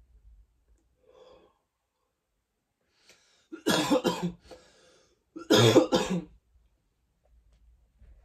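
A man coughing in two bouts a second or so apart, each a quick run of several coughs, the cough that follows inhaling a dab of cannabis concentrate.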